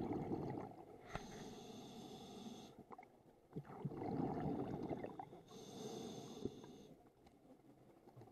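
Scuba regulator breathing underwater: a low rush of exhaled bubbles, then a hissing inhale through the demand valve a little after a second in. The cycle repeats, with a second burst of bubbles around the middle and another hissing inhale near the end.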